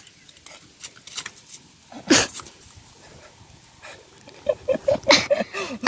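Plastic bag crinkling as a freshly caught Indo-Pacific tarpon is pulled out of it, with one loud sharp crackle about two seconds in. Near the end comes a quick run of short yelping calls.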